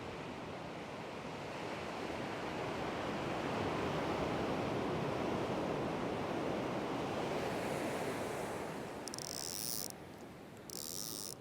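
Surf on the beach: a wave swells, washes up and fades away over several seconds, followed near the end by two short, high hisses.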